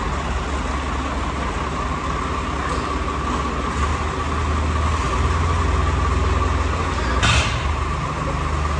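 Swaraj 855 tractor's diesel engine running steadily, with a brief hiss about seven seconds in.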